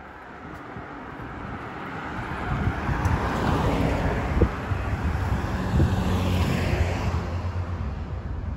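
A car driving past on the road: engine and tyre noise that swells as it approaches, is loudest in the middle, and fades as it goes away.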